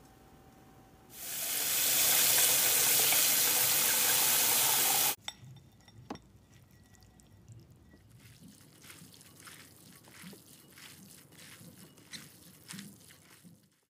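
Water running hard into a kitchen sink for about four seconds, cut off abruptly, as the boiled noodles and vegetables are drained. Afterwards, faint soft clicks and squishes of a gloved hand tossing the wet noodles and vegetables with seasoning in a glass bowl.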